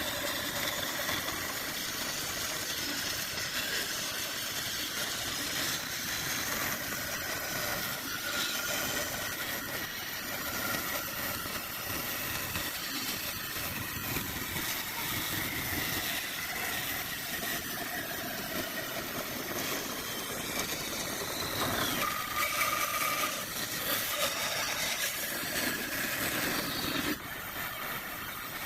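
A power tool's motor running with a steady noisy whir, its pitch sliding up and down. About two thirds of the way in, the pitch drops sharply and then holds a steady tone briefly.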